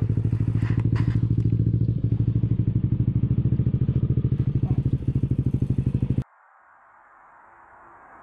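Yamaha Aerox scooter's single-cylinder engine idling with a steady pulsing beat, with a few light clicks about a second in; the engine sound cuts off abruptly about six seconds in, leaving a faint rising hiss.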